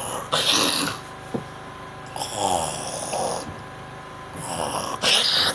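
A person snoring heavily: three loud snoring breaths about two seconds apart. It is the kind of snoring that is warned may mean the brain is not getting enough oxygen.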